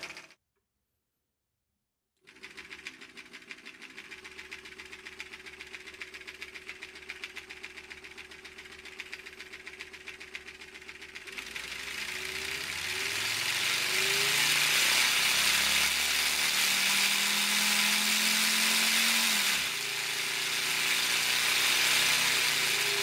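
1:5-scale LEGO Honda B18C model engine with diecast metal pistons, turned by an electric motor. After a second or two of silence it runs with a steady, fast clatter of pistons and plastic parts. About halfway through it speeds up to a much louder rattle and whir that rises in pitch, drops back briefly and then runs up again.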